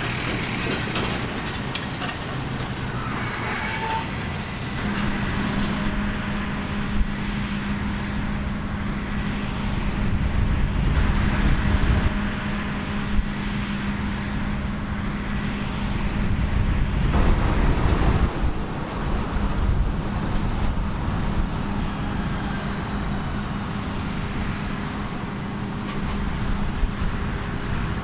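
Heavy harvest machinery running, a steady diesel engine hum with rumble that swells louder twice, about ten and about seventeen seconds in.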